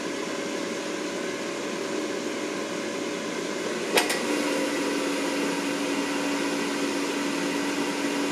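Philips Airfryer's fan running with a steady hum and airy noise. A sharp plastic click about four seconds in as the basket handle is handled.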